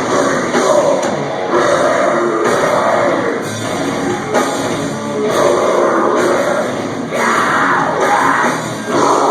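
Metalcore band playing live: heavy distorted guitars, bass and drums at full volume, with screamed vocals, heard through a small camera microphone in a club.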